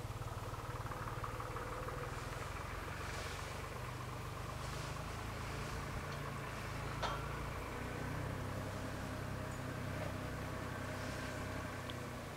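A vehicle engine idling steadily with a low hum, with a single sharp click about seven seconds in.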